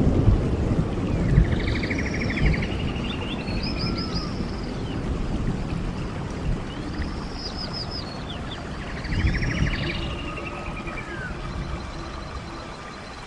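Songbirds singing repeated phrases of arching, down-slurred whistles and fast trills every few seconds, over the low rush of a flowing stream that grows fainter toward the end.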